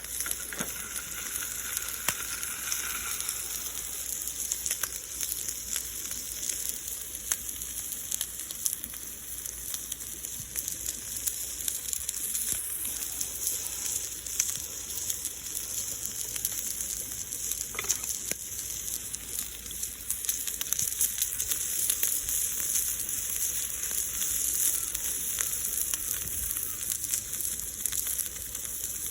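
Thick-cut bacon frying in a cast-iron skillet: a steady sizzling hiss with many small pops and spits of fat.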